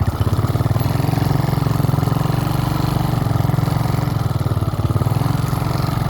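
Small motorcycle engine running steadily, with an even, rapid pulse of firing strokes.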